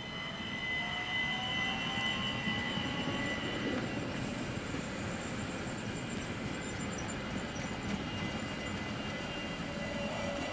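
ÖBB Talent (class 4024 Cityjet) electric multiple units running through the station: a steady rumble of wheels on rail with a high, steady whine over it. About four seconds in, a burst of hiss lasts about two seconds.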